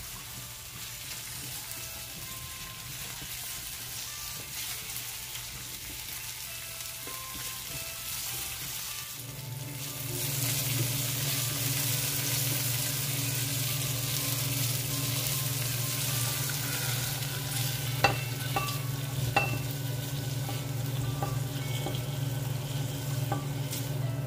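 Sliced bell peppers sizzling in a nonstick frying pan as they are stirred with a silicone spatula. The sizzle grows louder about ten seconds in, and two sharp knocks come later on.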